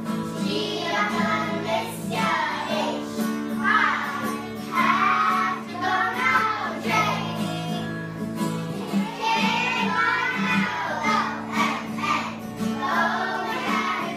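A group of young children singing along to acoustic guitar accompaniment, with an adult singer's voice among them.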